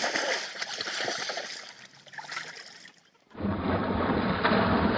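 Water splashing and trickling for about three seconds. After a short break, a steady rush of rain with a low rumble, like wind on the microphone, starts.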